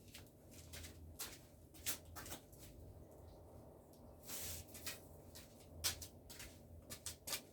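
Faint handling noises: scattered light clicks and knocks, with a short rustle about four seconds in, as a potted plant is picked up and carried.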